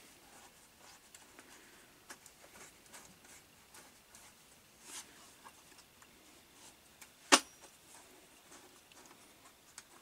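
Faint clicks and rustling of hands fitting a plastic clamp bracket onto a strimmer's aluminium shaft, with one sharp click about seven seconds in.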